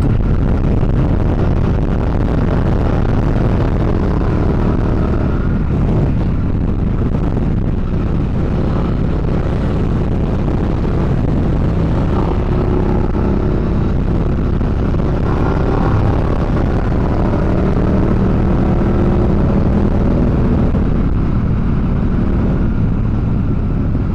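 Motorcycle engine running under way with wind and road noise, its pitch drifting up and down a little as the speed changes.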